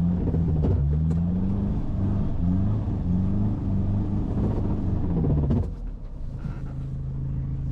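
Toyota Hilux engine under way, its revs repeatedly rising and dropping back. A little over five seconds in it changes abruptly to a quieter, steady drone.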